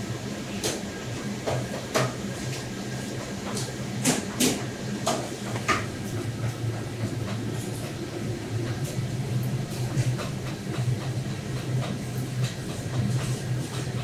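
A steady low hum, with scattered sharp clicks and knocks of a knife cutting and handling bluefin tuna on a wooden cutting board, a few of them louder about 2 and 4 seconds in.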